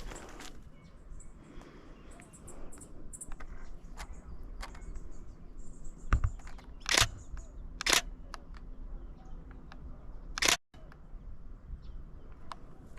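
Shutter of a Canon Rebel T7i DSLR firing, a handful of sharp clicks with the three loudest about a second or more apart in the second half and fainter ones earlier.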